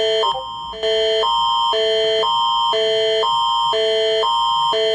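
The Canadian Alerting Attention Signal, the Alert Ready emergency alarm, introducing a tornado warning. It alternates a higher and a lower chord every half second over a constant high tone. It breaks off briefly about a third of a second in and starts again just before the one-second mark.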